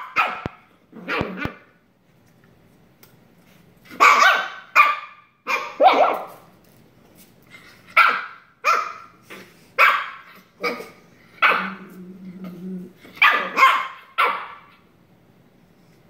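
Shiba Inu dogs play-barking: about a dozen short, sharp barks in clusters with pauses between, and a low growl among them about three quarters of the way in.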